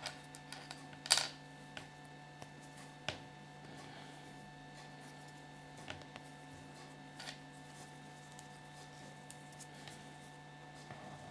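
Scattered light clicks and taps of small plastic Kinder Surprise toys being handled, the loudest about a second in, over a steady electrical hum.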